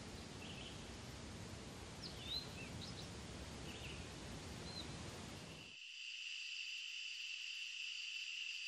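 Faint outdoor ambience, a steady hiss with a few short bird chirps. About six seconds in it cuts abruptly to a steady high-pitched insect trill.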